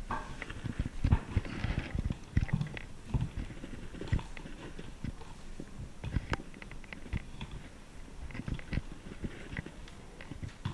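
Close handling noise of objects being picked up and moved, including a laptop: irregular soft knocks and rustles with a few sharp clicks.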